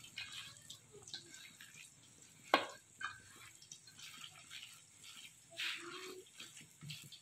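A hand squishing and mixing wet vegetable pakora batter of shredded potato and leafy greens in a stainless steel bowl: faint, intermittent wet squelching, with one sharper click about two and a half seconds in.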